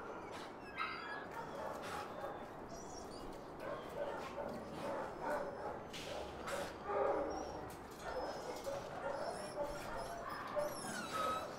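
Dogs in shelter kennel runs barking off and on, with a louder spell about seven seconds in.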